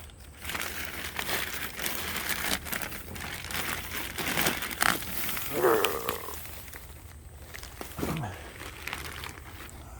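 A large plastic trash bag full of sawdust rustling and crinkling as it is handled, busiest in the first six seconds and quieter after. Two short sounds falling in pitch come through about six and eight seconds in.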